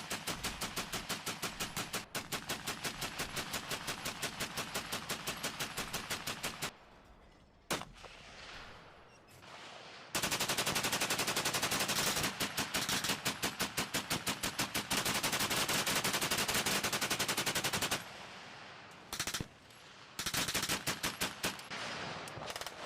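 Machine-gun fire in long, rapid bursts, as a First World War battle sound effect. A long burst stops after about seven seconds and a single shot follows. After a short lull comes a long, dense burst of about eight seconds, then shorter bursts near the end.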